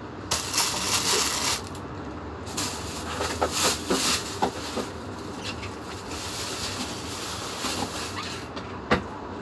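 Plastic grocery bags rustling and crinkling in bursts as produce is handled and unpacked, with scattered small knocks and one sharp click near the end.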